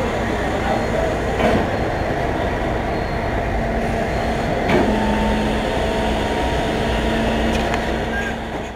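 Steady diesel engine rumble, typical of a fire engine running its pump to feed charged hoses, with a couple of brief knocks; it fades near the end.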